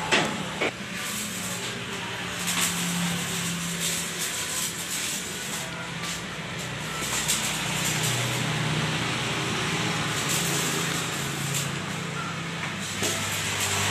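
A motor engine running with a low hum that drifts slowly in pitch, over a steady wash of outdoor noise. There are two sharp knocks in the first second.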